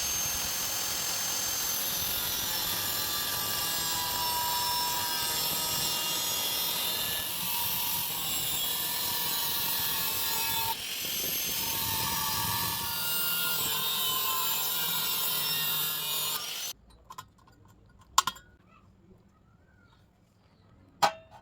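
Steady, harsh metalworking noise, a hissing scrape with a shifting whine, that cuts off suddenly about 17 seconds in, followed by two sharp clicks.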